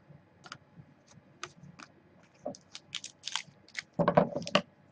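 Hockey trading cards being handled and flicked through by hand: a scatter of light clicks and snaps, then a louder burst of rustling and tapping about four seconds in.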